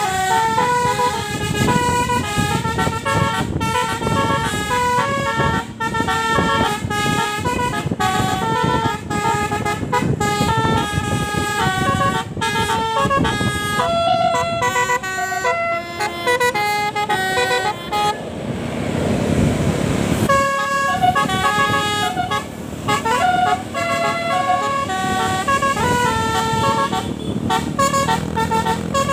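Basuri telolet musical horn on a tour bus playing fast melodies, its notes switching several times a second, over a low engine rumble. About two-thirds of the way through, the tune breaks for a couple of seconds of hissing noise before the notes start again.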